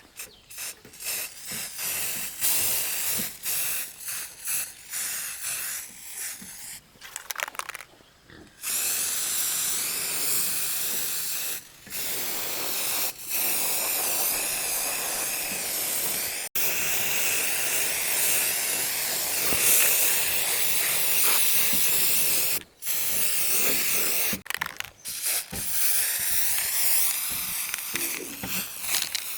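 A jet of pressurised air or spray hissing from a nozzle: short on-off bursts at first, then long steady blasts with brief pauses.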